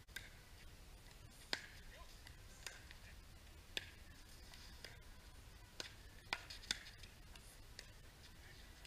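Pickleball paddles striking a hard plastic pickleball in a doubles rally: sharp pops about once a second, with a quicker run of three hits a little past halfway.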